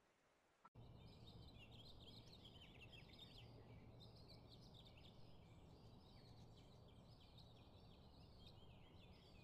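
Faint chirping of many small birds over a low steady hum, starting just under a second in.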